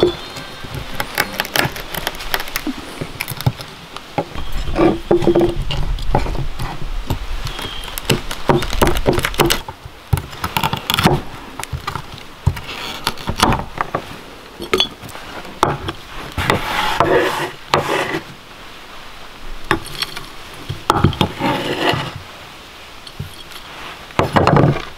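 Large knife chopping, cracking and scraping chunks of chaga fungus on a wooden cutting board: an irregular run of sharp knocks and cracks with scrapes in between.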